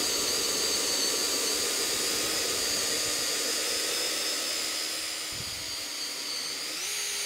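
Dewalt brushless hammer drill, in drill mode on its low speed, boring a 1.5-inch speed-bore bit into a thick wooden beam under heavy load: a steady motor whine that drops in pitch as the bit bites. The whine rises again near the end as the load eases and the hole is finished.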